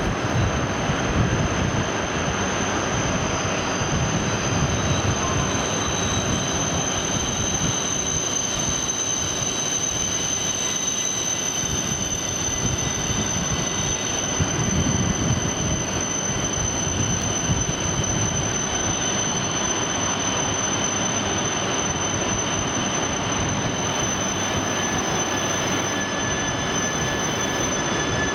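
E3 series 2000 Shinkansen train standing at the platform, its equipment giving a steady hiss with several steady high-pitched whines. Near the end a new, lower whine joins as the train starts to move off.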